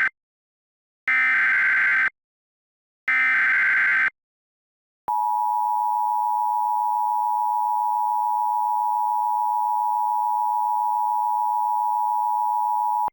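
Emergency Alert System alert tones. The header code screeches three times, about a second each and two seconds apart: the end of the first, then two more. About five seconds in, the steady attention tone starts, holds for about eight seconds and cuts off suddenly.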